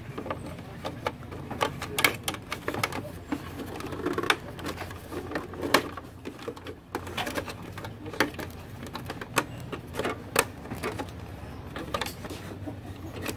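Irregular sharp plastic clicks and knocks as the white pickup roller assembly of an Epson L360 inkjet printer is handled and fitted back into its paper-feed mechanism.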